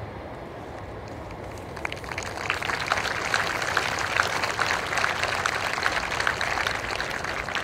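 Crowd applauding, a dense patter of handclaps that starts about two seconds in and tapers off near the end.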